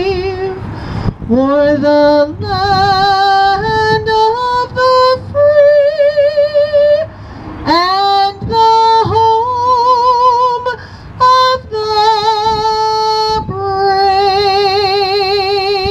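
A woman sings solo and unaccompanied into a microphone, with a strong vibrato on her held notes. The song ends on a long held note near the end.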